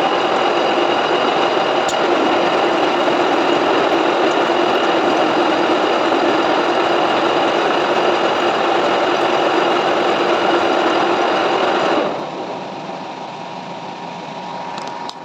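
Metal lathe turning a shaft, a steady machining noise with a held whine. About twelve seconds in it drops sharply to a quieter running hum, as the cut ends.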